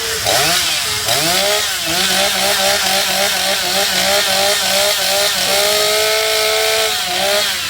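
Gasoline chainsaw, just retuned, running and revved in quick repeated blips, then held at high revs for about a second and a half before dropping back near the end.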